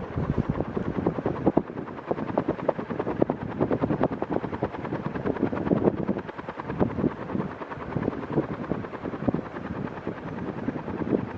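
Panasonic F-560A1 56-inch industrial ceiling fan running, its moving air making a rapid, uneven fluttering.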